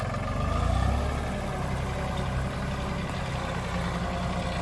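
New Holland TC30 compact tractor's small three-cylinder diesel engine running steadily as the tractor drives across rough dirt, growing a little louder about a second in.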